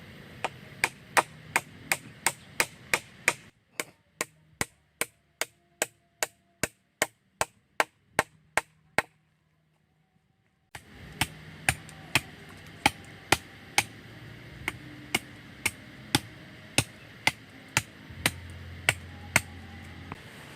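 A blade chopping wood: a long run of sharp, evenly spaced strokes, about two to three a second, with a short silent break a little past the middle.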